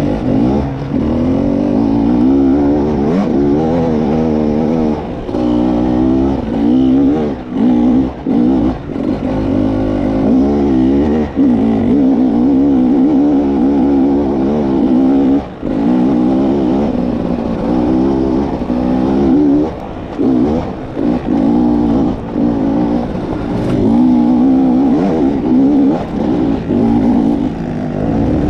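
Enduro motorcycle engine heard close up on a rocky climb, revving up and down with the throttle over and over, with short dips in the revs now and then.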